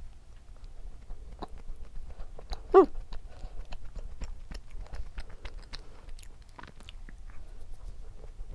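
Close-miked chewing of a chocolate-coated O'yes strawberry cheesecake snack cake: soft, irregular wet mouth clicks and smacks, with one short hum from the eater about three seconds in.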